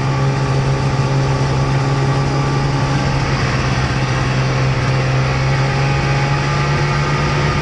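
A motor running steadily at a constant speed, with a strong even hum and a hiss over it.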